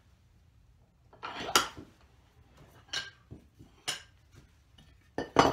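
Metal objects being handled on a workbench: a short clatter about a second in, a couple of light clinks, and a louder knock near the end as something is set down.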